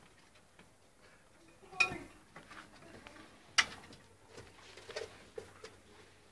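Scattered light clicks and knocks, with two sharp, louder knocks about two seconds and three and a half seconds in.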